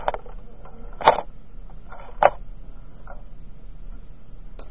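Paper pages of a composition notebook being turned and handled: three short, sharp rustles about a second apart, then a couple of fainter ones.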